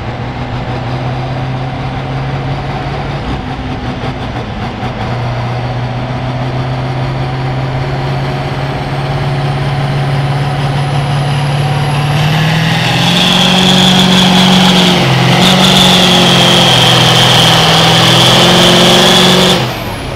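A Massey Ferguson farm stock pulling tractor's diesel engine runs under load as it drags the weight-transfer sled. It holds a steady note, then from about twelve seconds in grows louder and higher, with a high whistle over it, before cutting off suddenly just before the end.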